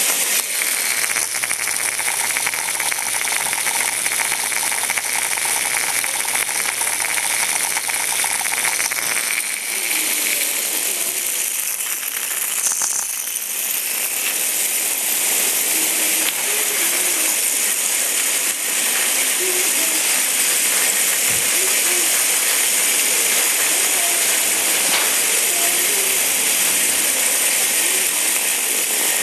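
Hexbug Bobble Bots, small vibration-motor toy robots, buzzing and rattling as they jitter across a hard floor. A steady hum with rapid clicking runs for the first nine seconds or so and then stops, under a constant hiss.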